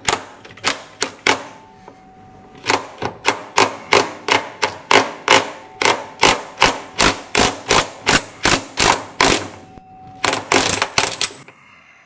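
Impact wrench hammering on a stuck 38 mm washing-machine tub nut: sharp, rapid knocks about three a second. There is a short burst at the start, a long run through the middle and another short burst near the end.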